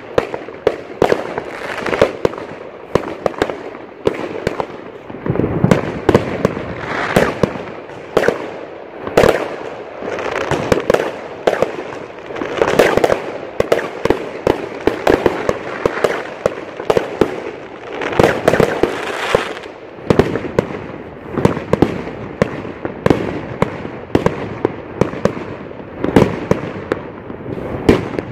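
Aerial fireworks going off without a break: many sharp bangs and crackles a second, overlapping, with louder swells every couple of seconds.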